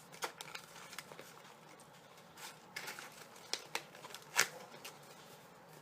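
A cardboard trading-card booster box being opened and handled: scattered light taps, clicks and rustles of cardboard and foil packs, the sharpest about four and a half seconds in.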